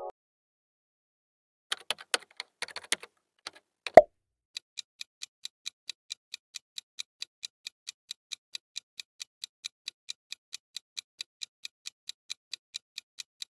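Clock-style ticking sound effect of a quiz countdown timer: sharp, high ticks evenly spaced at about four a second. Before the ticking starts there are a few scattered clicks and one louder knock about four seconds in.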